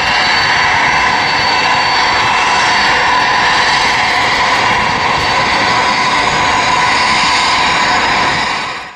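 Jet engines of an Airbus A330 airliner running as it rolls along the ground: a steady whine with several high whistling tones over a broad rush, fading out at the very end.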